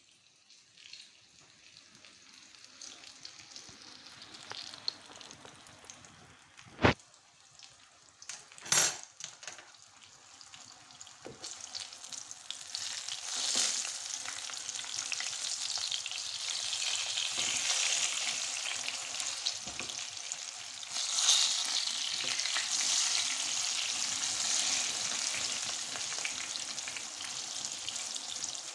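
Food sizzling in a hot pan, the sizzle growing louder over the second half. Two sharp knocks, the loudest sounds, come a little before the middle.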